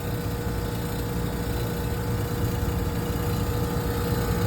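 Carrier HVAC unit running with a steady machine hum and a faint steady tone.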